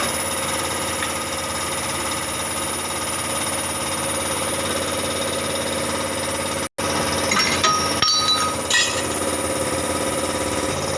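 A power tool running steadily, a fast mechanical rattle with a constant high whine. It cuts out for an instant about two-thirds of the way in, then carries on with a few short squeaks and clinks.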